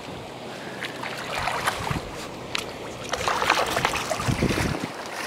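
A large hooked Arctic char thrashing and splashing in shallow water at the shore. The splashes come thicker from about three seconds in, with wind noise on the microphone.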